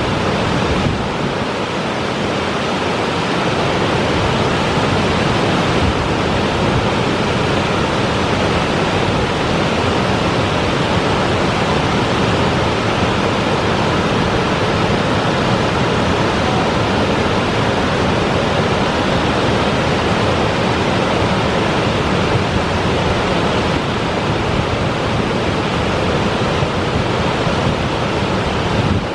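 Cumberland Falls, a broad waterfall about 125 feet wide, pouring into its plunge pool: a loud, steady rush of falling water.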